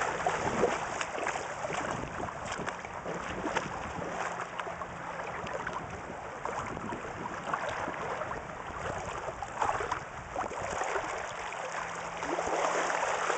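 Shallow bay water lapping and sloshing, with many small splashes and clicks.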